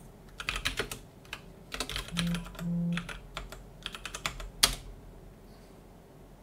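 Typing on a computer keyboard: bursts of quick key clicks, ending a little over two-thirds through in one harder key strike as the command is entered. Two brief low hums sound a little after two seconds in.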